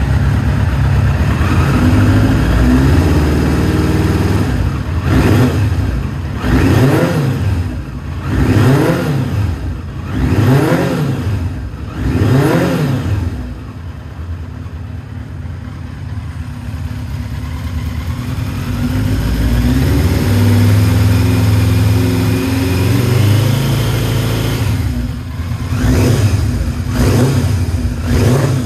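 Kawasaki GPZ900R's inline-four engine running through a Baby Face full exhaust system, blipped in a series of quick revs about two seconds apart. It settles back to idle, then revs up more slowly and at length, and gives a few more quick blips near the end.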